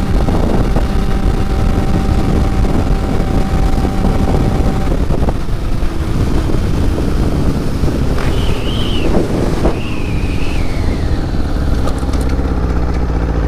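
Motorcycle engine running at road speed, with wind rushing over the helmet-mounted microphone. Two brief higher whistling tones come in about eight and ten seconds in.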